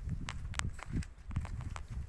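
A person walking: uneven footsteps with dull thuds and sharp crunching clicks underfoot.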